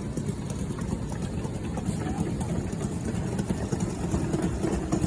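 An engine idling with a low, even rumble; a steady hum comes in about four seconds in.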